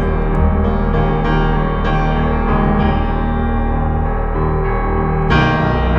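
Slow dark ambient instrumental music built on sustained keyboard chords, with a new, brighter chord coming in about five seconds in.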